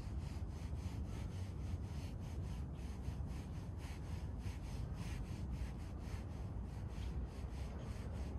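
A hand stroking a tabby cat's fur gives a soft rubbing rustle, heard as faint repeated streaks over a steady low rumble.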